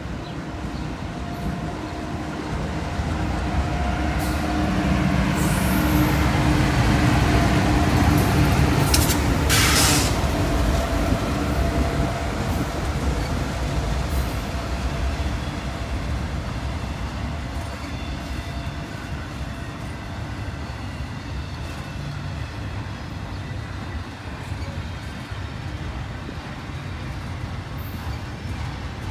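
CSX freight train passing: the lead diesel locomotives rumble by with a steady engine drone, loudest several seconds in, with a brief hiss near the middle. The sound then settles into the steady rolling of intermodal flatcars carrying trailers.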